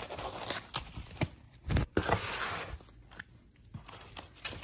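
Rustling and scraping of foam sheet and paper packing being pulled out of a cardboard box, with scattered sharp clicks and a louder rustle a little under two seconds in.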